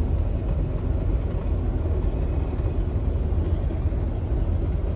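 Semi-truck driving at highway speed, heard inside the cab: a steady low rumble of engine and road noise.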